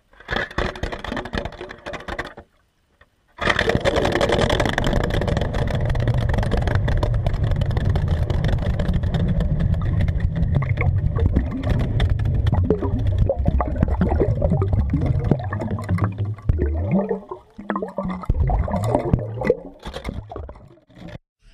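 Water churning under the ice with a steady low rumble that starts abruptly about three seconds in, breaking up into irregular knocks and swirls after about sixteen seconds.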